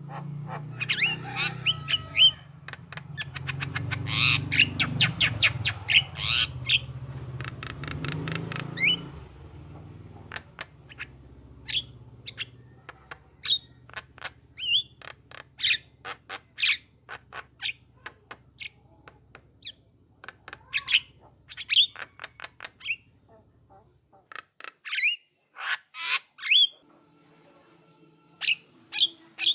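Javan myna calling: a long string of short, sharp whistled and harsh notes, with a fast rattling chatter a few seconds in. A low hum runs underneath and stops about three-quarters of the way through.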